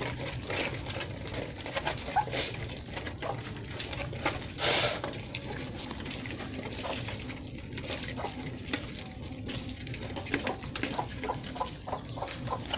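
A litter of puppies eating together from a shared metal pan: many rapid wet chewing, slurping and lapping smacks overlapping. A brief louder rush of noise comes about five seconds in.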